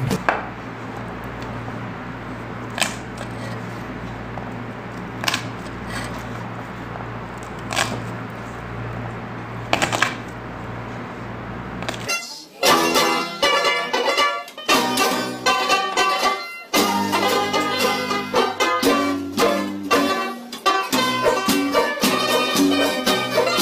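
A steady low hum with a faint click about every two and a half seconds, then, about halfway through, background music with plucked strings starts and carries on.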